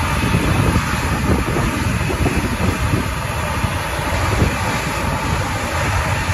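Boeing C-17 Globemaster III's four turbofan engines running steadily with a continuous jet hiss, mixed with gusty wind buffeting the microphone.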